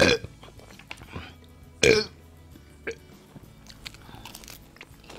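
A man burping loudly twice, about two seconds apart, while eating fried chicken, with small clicks of chewing and biting in between.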